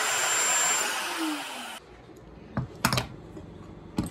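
Handheld plunge router running and cutting a mortise in an oak leg through a mortising jig, a steady high whine with hiss. It stops abruptly a little under two seconds in, followed by a few wooden knocks and clatters as the jig is handled.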